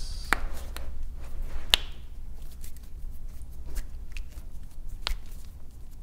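Joints in the hand and wrist popping during a chiropractic extremity adjustment: several separate sharp cracks spread out, the loudest about two seconds in.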